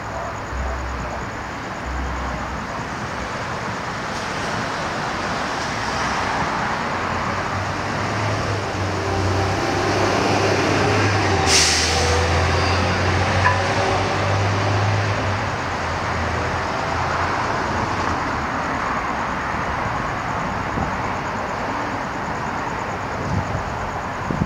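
Steady outdoor traffic noise, with a low rumble that builds and fades through the middle and a short sharp hiss near the middle.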